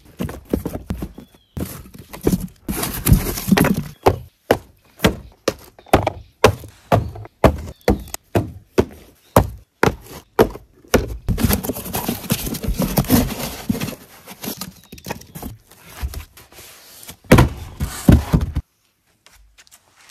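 Cardboard boxes set down one after another on wooden deck planks: a run of sharp knocks and thunks, about one or two a second, with scraping and rubbing of cardboard and styrofoam in between. A last loud knock comes near the end, then it stops.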